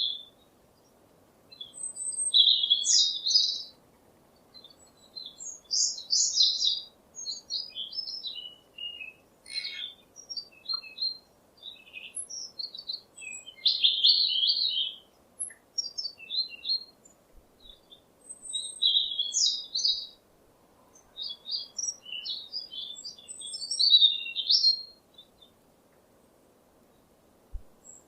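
Bird singing in repeated phrases of quick, high chirps and trills, each lasting a second or two with short pauses between, over a faint steady hiss.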